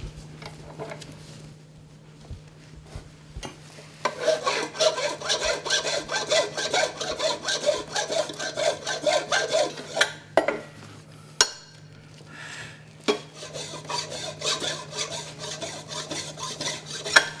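Hand file rasping back and forth across walrus ivory clamped in a vise, about two to three strokes a second, flattening a surface the coping saw left uneven. The filing starts about four seconds in, stops briefly with a sharp knock, then resumes.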